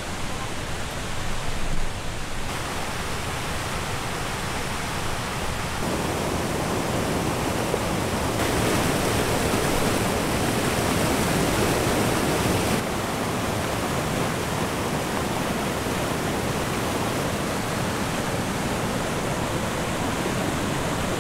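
Waterfall and river rapids rushing: a steady, dense hiss of falling white water. Its level and tone jump at several cuts and are loudest a little before the middle.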